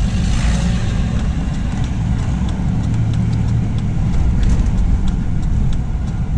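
Car engine and road noise heard from inside the cabin while driving slowly, a steady low rumble, with faint light ticks recurring about every half second.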